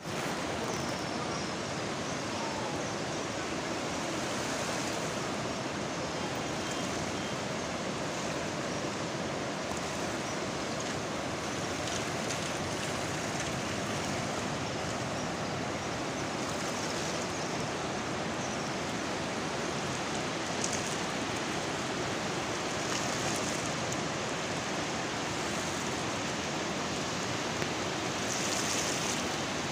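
Steady rushing of the fast, muddy Swat River in flash flood: a dense, unbroken wash of turbulent floodwater.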